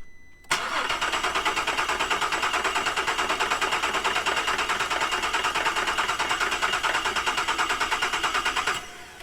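Rodeo engine turned over on its starter motor with the ignition coils disconnected so it cannot fire: a steady, rhythmic cranking with several pulses a second. It starts about half a second in and stops abruptly near the end. The engine is being cranked this way to listen for damage to the timing chains before it is allowed to start.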